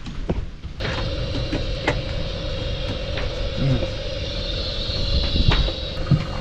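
A motor starts running about a second in, a steady hum with a high whine over it. A few sharp knocks sound over the hum.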